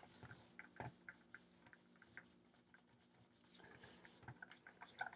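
Faint scrubbing of a steam iron's metal soleplate with a cloth and a gritty baking-soda-and-vinegar paste: quick rubbing strokes that ease off briefly midway, then pick up again.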